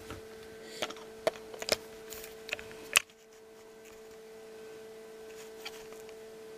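Small dome egg incubator's fan motor humming steadily, one even pitch throughout. A few light clicks and knocks in the first three seconds end in a sharper click about three seconds in.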